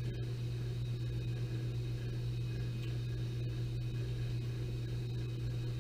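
Steady low electrical hum with a faint high whine above it, and a few faint clicks.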